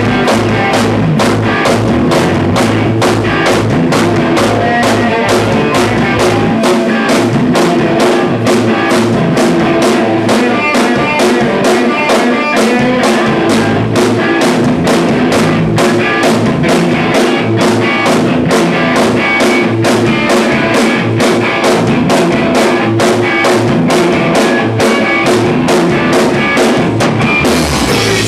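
A live rock band playing loud, with electric guitars and a drum kit keeping a fast, steady beat; the cymbals come up brighter near the end.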